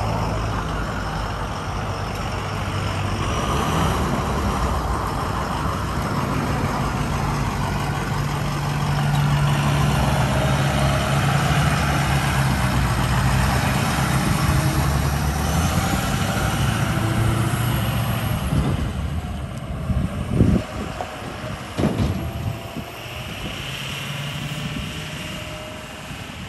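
A 2007 Ford F-550 dump truck's 6.0L turbo-diesel V8 running steadily as the truck drives past, loudest midway, then fading as it pulls away. A few short thumps come near the end.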